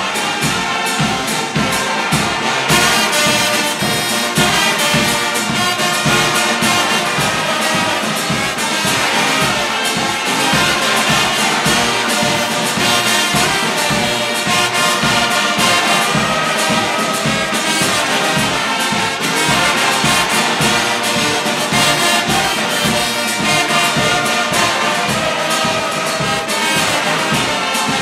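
Brass band of trumpets, trombones and tubas playing, with a steady low beat underneath.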